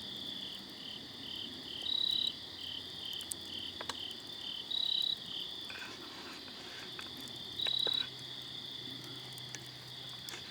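Night chorus of crickets and frogs: a steady high insect trill, a loud short high-pitched call repeating about every three seconds, and a run of pulsed notes about three a second that stops about halfway. A couple of faint pops from the campfire.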